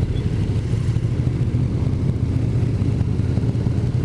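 Motorcycle being ridden at a steady speed: an even, muffled drone of engine and road noise with no change in revs.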